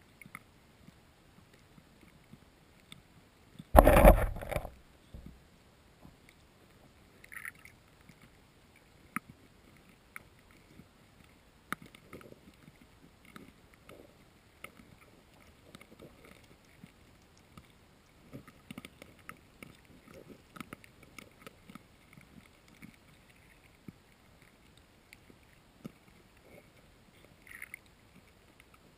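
Feeding carp heard underwater: irregular soft clicks and knocks, scattered throughout. About four seconds in there is one loud rumbling thump lasting about a second.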